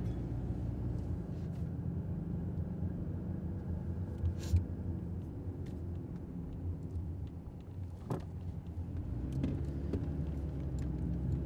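Steady low rumble of road and engine noise inside a moving Toyota sedan's cabin, with two short sharp knocks, one about four and a half seconds in and one about eight seconds in.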